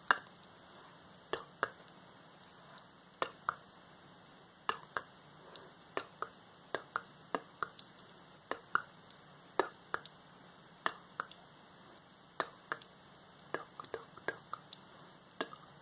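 Fingers tapping on a paper notebook: crisp separate taps, mostly in quick pairs, about one pair a second.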